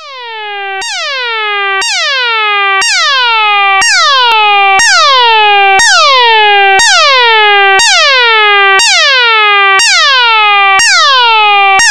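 Synthesized sci-fi alarm: an electronic tone that drops sharply in pitch and then holds, repeating about once a second. It fades in over the first few seconds, then stays loud.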